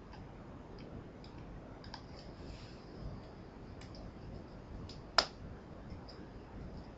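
A few faint computer mouse clicks over a low steady background hiss, with one sharper, louder click about five seconds in.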